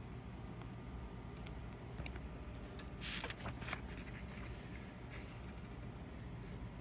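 Quiet handling of a date stamp and a paper notebook: a few light clicks, then a brief rustle of paper about three seconds in, over a low steady hum.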